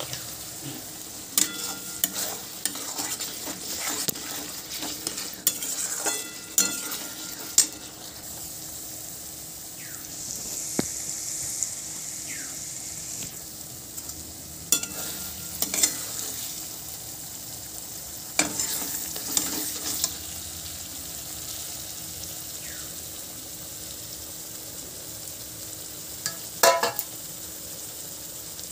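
Spice paste sizzling in oil in a metal kadai while a metal spatula stirs and scrapes it: the masala is being fried down. The frying makes a steady high hiss, broken by several spells of spatula scraping and clinking against the pan and a sharp clatter near the end.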